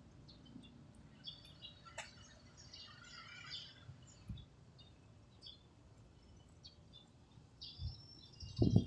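Faint, scattered chirping of small birds in the roadside trees, in short runs about a second in and again near the end. A low thump near the very end is the loudest sound.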